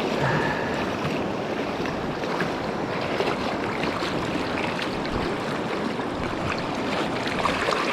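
Swollen river current rushing steadily over rocks; the river is still running high after typhoon rain.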